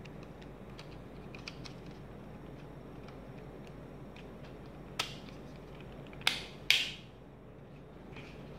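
Handling noise from an electric shaver and its plastic box: faint scattered clicks and taps, then three sharp clicks, one about five seconds in and two close together about a second later.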